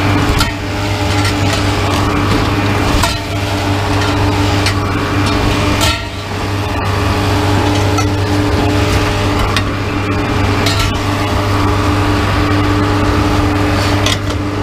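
Metal tubing and chair frames thrown from a pickup bed, clanking onto the scrap-yard ground about every three to four seconds, over the steady drone of a heavy diesel machine running.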